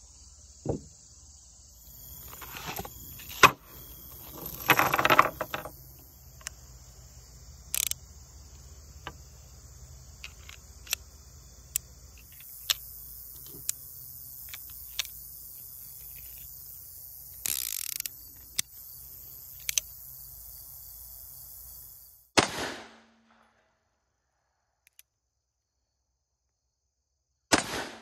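Stainless Ruger Super Blackhawk .44 Magnum single-action revolver being loaded by hand: sharp single clicks as the cylinder is turned chamber by chamber with the loading gate open, and louder metallic clatters of brass cartridges about three to five seconds in. Near silence for several seconds near the end.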